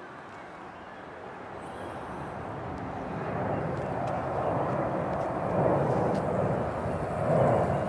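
Aircraft flying overhead, its engine noise growing steadily louder as it approaches.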